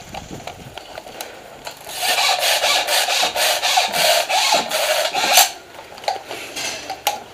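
Loud, rough scraping and rubbing in repeated strokes, lasting about three and a half seconds from about two seconds in.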